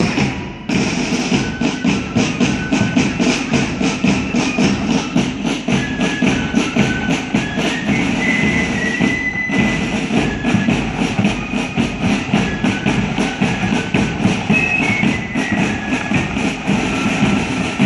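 Marching flute band playing: flutes carry a tune over a fast, steady drum beat.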